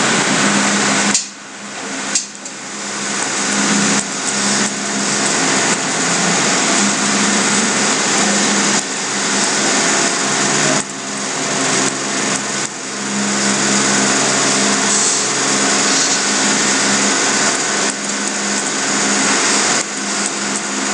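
Loud steady hiss with a low hum, the noise floor of a computer microphone, its level dropping suddenly and creeping back up several times. Occasional clicks of keyboard and mouse as the form's button is renamed.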